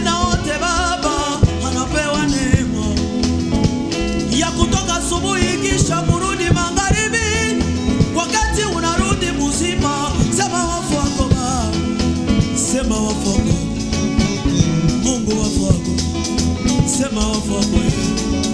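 Live band performing an upbeat gospel song: several male singers over drums and electric bass guitar, with a steady beat throughout.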